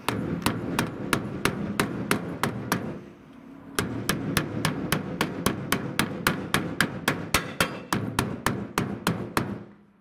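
Hammer tapping the cut edge of an Iveco Daily van's steel roof panel, about four quick metal-on-metal strikes a second with a brief pause about three seconds in, flattening the bent edge around a roof-vent hole so the vent will sit flush.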